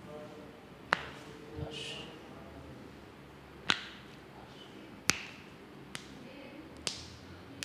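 Finger and hand joints cracking as a chiropractor pulls on them: about five sharp pops spaced a second or more apart, the first three the loudest.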